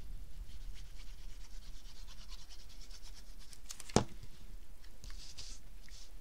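Tip of a liquid glue bottle rubbing across a paper strip, a faint scratching, with one sharp knock about four seconds in. Near the end, hands press and smooth the strip onto card stock with a soft rustle.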